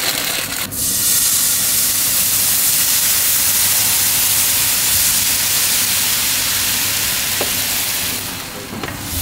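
Water poured onto a hot electric flat-top griddle around asparagus, hissing loudly as it flashes to steam to steam the spears. The hiss starts about a second in, holds steady, and dips briefly near the end.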